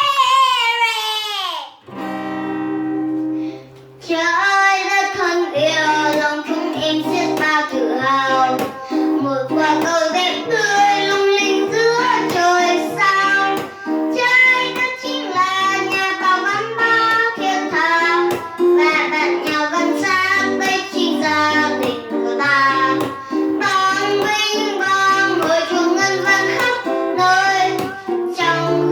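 A child singing a Vietnamese children's song over a guitar-led backing track with a steady bass line. The music opens with a falling sweep and a held chord, and the voice comes in about four seconds in.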